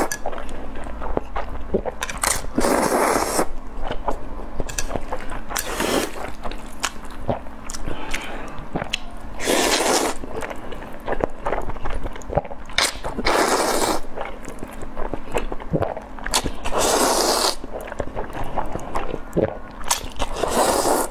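Noodles slurped into the mouth from chopsticks, six loud slurps a few seconds apart, with wet chewing and small clicks between them.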